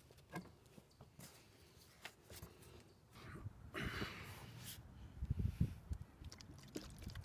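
Faint rubbing of a paper shop towel wiped across a van's painted sheet-metal roof, with light clicks and knocks of handling. A brief brushing hiss comes about four seconds in, and low rubbing thumps follow near the end.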